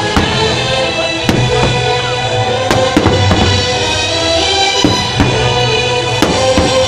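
Loud music with a heavy drum beat, with irregular sharp bangs cutting through it.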